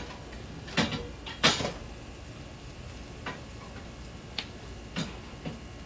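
A few separate knocks and clacks, the loudest about a second and a half in, with quieter ones scattered through the rest.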